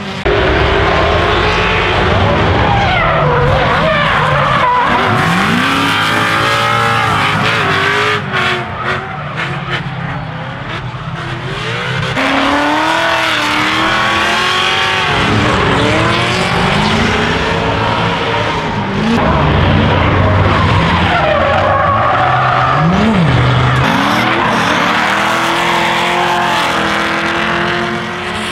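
Drift cars sliding past one after another. Their engines rev up and down in repeated rising and falling sweeps over continuous tyre squeal and skidding.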